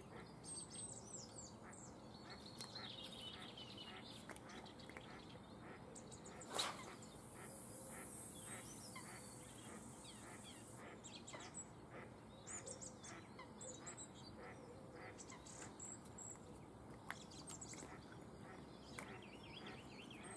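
A carp rod being cast: a sharp swish about a third of the way in, then line hissing off the reel's spool for about four seconds. Water birds call faintly throughout.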